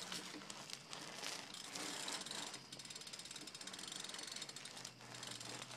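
BMX bike's rear freewheel hub ticking rapidly as the bike coasts on pavement, its pawls clicking.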